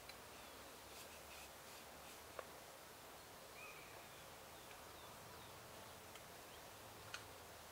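Quiet outdoor ambience: a faint hiss with a few short, faint high chirps from small birds, and a sharp click about two seconds in and another near the end.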